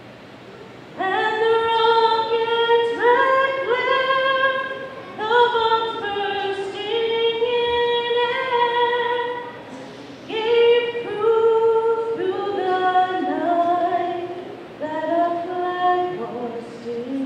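A woman singing unaccompanied, in long sung phrases with held notes, starting about a second in with short breaks for breath about ten and fifteen seconds in.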